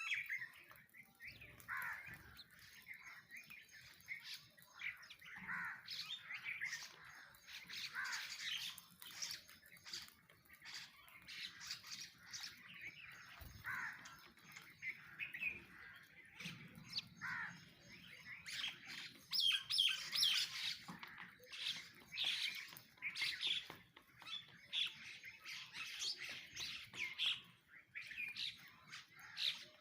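A crowd of sparrows chirping constantly in overlapping short notes, mixed with harsher myna squawks; the chatter is busiest about twenty seconds in.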